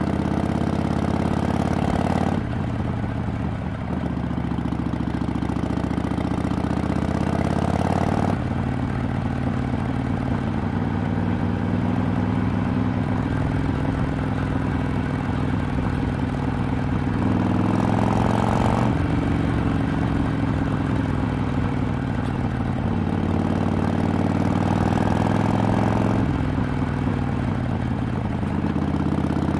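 2007 Harley-Davidson Sportster XL883R's air-cooled 883 cc V-twin running through a Vance & Hines exhaust while riding. The exhaust note rises and then drops sharply several times as the bike works through the gears and throttle.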